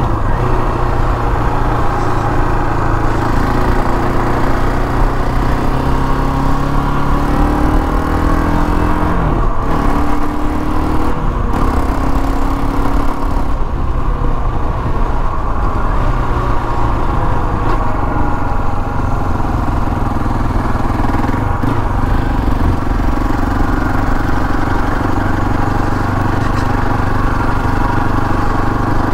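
KTM 525 XC quad's single-cylinder four-stroke engine running under way at road speed. Its pitch rises and drops a few times about a third of the way in as the throttle changes, then holds steady.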